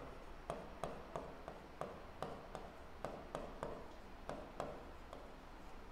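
Faint tapping and clicking of a pen stylus on an interactive whiteboard's screen while a word is written by hand, about two to three short ticks a second.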